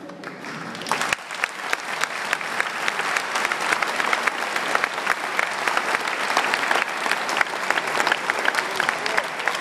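A seated crowd applauding: hand claps thicken into full, steady applause about a second in.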